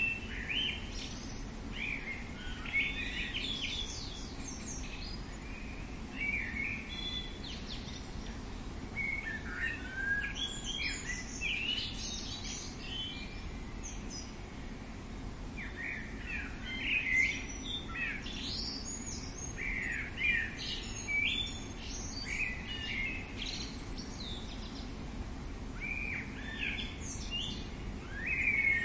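Songbirds chirping and calling in clusters of short high chirps and trills, with brief lulls, over a steady low background noise.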